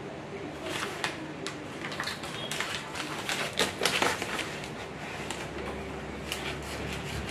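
Brown paper mailer envelope crinkling and rustling with irregular sharp crackles as it is handled and opened by hand. A low hum comes in past the middle.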